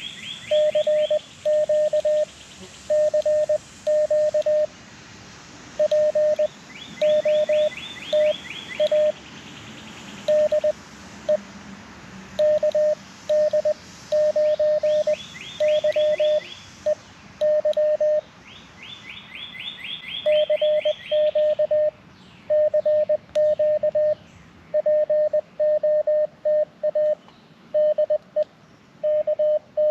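Morse code keyed on a paddle key, heard as the transceiver's single steady sidetone through a small speaker: dits and dahs in groups with short gaps, a CW call going out on 20 meters. A bird's rapid high trill comes in four times behind it.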